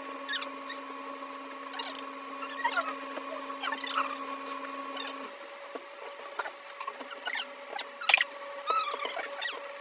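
Close-miked eating sounds of noodles being chewed and slurped: a run of wet clicks, smacks and small squeaky slurps. They sit over a steady hum whose lowest tone stops about halfway through.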